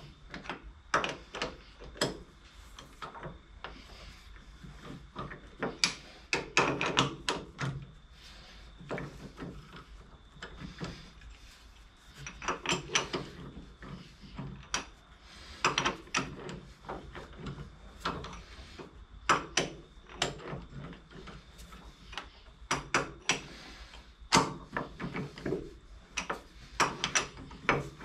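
Irregular metallic clicks and clunks of a cam lock key being turned in the cam locks of a D1-8 lathe spindle nose, with the 5C collet chuck knocking against the spindle as it is handled.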